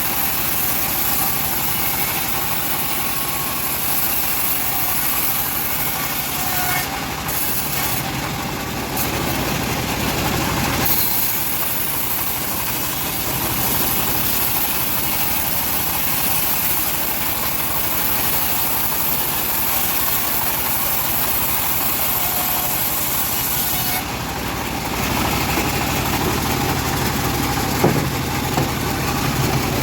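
Home-built bandsaw sawmill running, its engine and blade making a steady mechanical noise with a hiss. The sound shifts about 11 seconds in and again around 24 seconds in, and there is a single sharp tick near the end.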